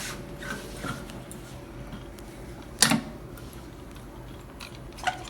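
Plastic and metal ventilator parts being handled as an assembly is taken off. There are a few faint clicks and one sharp click or knock about three seconds in, over a steady low hum.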